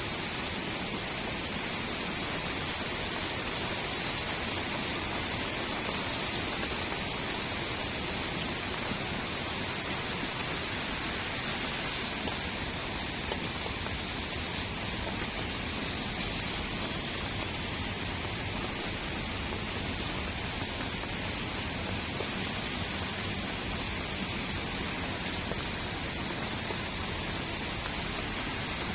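Steady rain falling on a street: an even, unbroken hiss of rainfall with no distinct drops or breaks.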